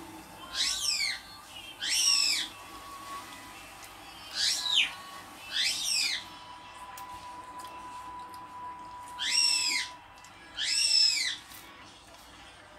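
Six high, bird-like whistled calls in three pairs, each sliding down in pitch over about half a second.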